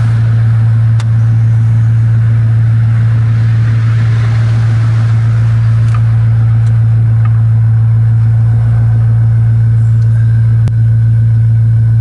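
Vehicle engine idling: a loud, steady low drone that holds one pitch, with a pulsing rumble beneath it.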